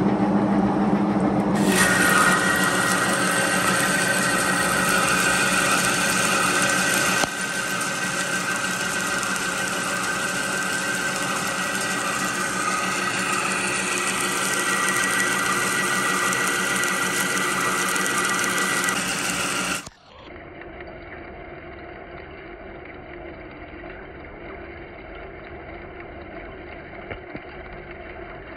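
Monarch engine lathe taking a heavy roughing cut in 1045 steel with a carbide insert under flood coolant: a steady machining sound with a high whine from the cut. About two-thirds of the way through it drops abruptly to a quieter, duller version of the same running cut.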